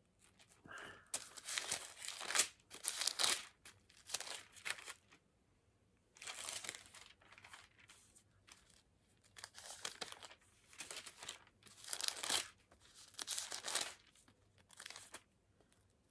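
Bible pages being leafed through: a run of short papery rustles and flips, in clusters with brief pauses between.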